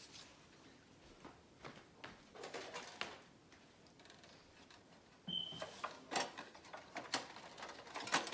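Scattered light clicks and rustles of hands handling thin wire and moss. The clicks grow busier after about five seconds, and a brief high squeak comes just past five seconds.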